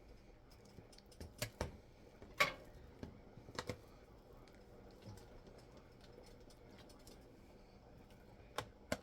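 A few light clicks and taps of a cooking utensil against a pot, spaced out with long gaps.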